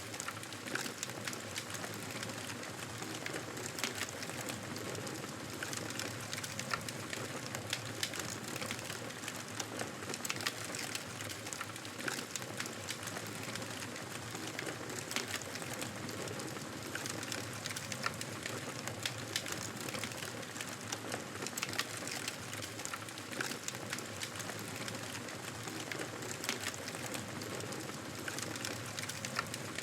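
Fireplace fire crackling: a steady soft hiss with many sharp, irregular pops and snaps.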